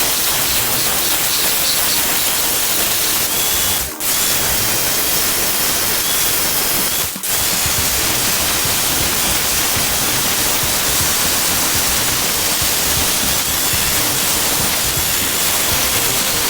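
Steady, loud rushing noise with no clear pitch, broken by two short dropouts about four and seven seconds in.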